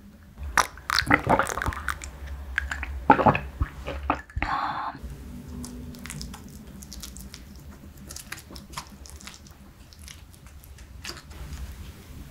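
Wooden chopsticks working soft flesh off the bones of braised cutlassfish in a pan of thick sauce: soft wet squishing with many light clicks. Several louder knocks and clinks come in the first few seconds, and a brief noisy rush comes about four and a half seconds in.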